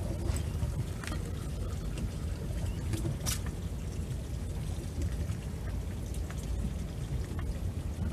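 Steady low rumble of wind and water around a small fishing boat at sea, with scattered light splashes and clicks, one a little louder about three seconds in.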